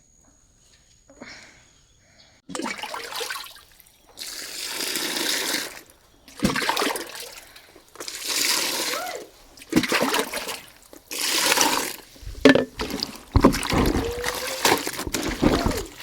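Wet laundry being wrung out by hand, water splashing and trickling down in repeated surges.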